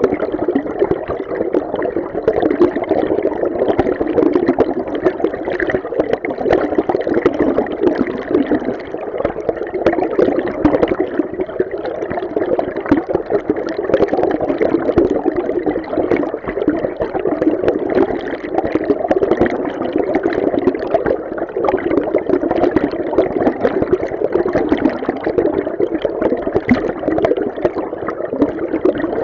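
Underwater recording of a river stream: a steady, muffled rush of flowing water with a constant fine bubbling and gurgling texture.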